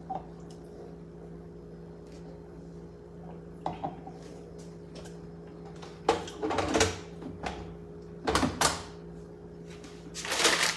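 Whole okra pods being loaded into a blender jar: a few short clattering, rustling bursts about midway and again near the end, over a steady low electrical hum. The blender is not running.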